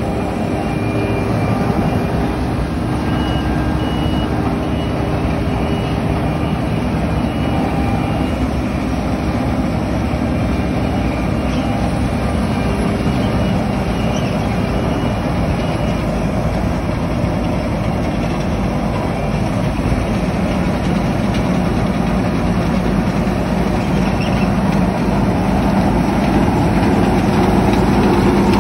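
Massey Ferguson 7345 S combine harvester running steadily while cutting rice, its engine and harvesting machinery making a continuous mechanical drone that grows a little louder near the end.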